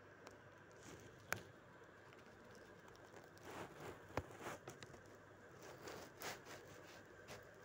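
Near silence: room tone with a few faint clicks and soft rustles.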